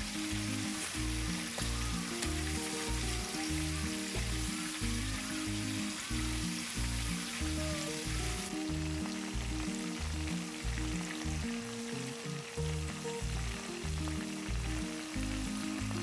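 Ajillo frying in hot oil in a skillet: a steady sizzle, under background music with a steady beat.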